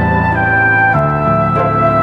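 Background music: a slow melody of sustained notes on a flute-like wind instrument over held chords.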